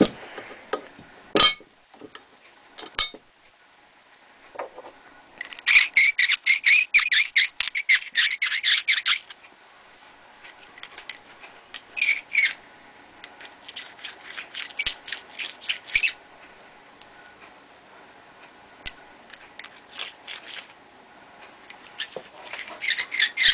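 Lyman Universal case trimmer's cutter, hand-cranked against the mouth of a brass .30-30 case, rasping in quick strokes of about six a second for some three seconds near the middle, among scattered clicks and handling knocks. Shorter scraping bursts follow as the trimmed case mouth is worked by hand with a deburring tool.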